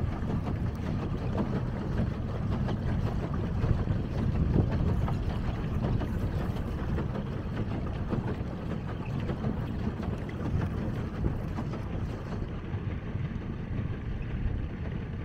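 Steady wind rumble on the microphone, with water lapping and splashing against a moving pedal boat.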